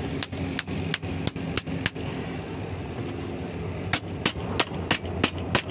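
Sharp metallic clicks, about three a second, from a 30-ton bottle hydraulic jack being worked by hand. The clicks pause for about two seconds in the middle, and the later ones are louder and ring brightly.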